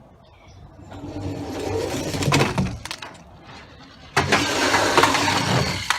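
Engine-like vehicle sound from a toy, in two bursts: one swells up from about half a second in, and a louder one starts abruptly about four seconds in and lasts under two seconds.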